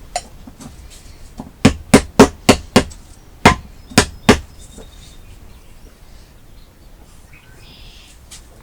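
Sharp knocks, like hammer blows: a light one just after the start, then five quick ones about a second and a half in, and three more around three and a half to four and a half seconds.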